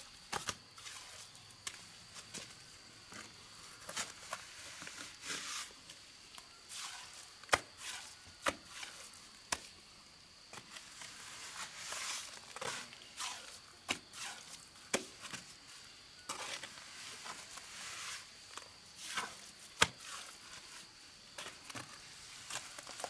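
Hand-tool work on brick and cement mortar: scattered sharp taps and clicks with softer scraping between them, two of the taps much louder than the rest. A faint steady high tone sits underneath.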